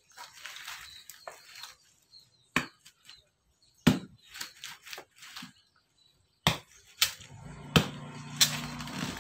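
A long knife blade stabbed point-down into a sprouted coconut's fibrous husk and levered to split it away: about six sharp knocks with fibrous tearing and scraping between them. A low hum comes in during the last couple of seconds.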